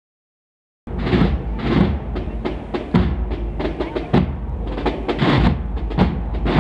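Processional band music with drums, playing behind a Virgin's palio. The audio drops out entirely for about the first second.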